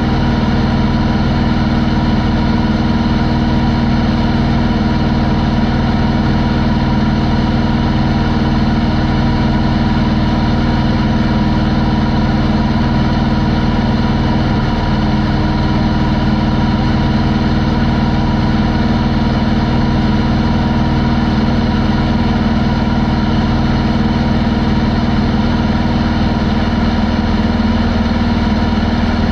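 Corvair air-cooled flat-six engine and propeller of a homebuilt Pietenpol Air Camper running steadily in cruise flight, a constant loud drone.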